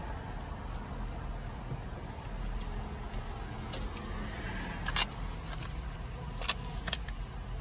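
Vehicle engine idling with a steady low rumble, heard from inside the cab, with a few sharp clicks about five seconds in and twice more shortly after.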